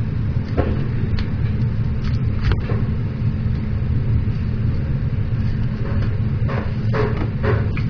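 Steady low rumble with a few short, sharp clicks and knocks; several of them come close together near the end.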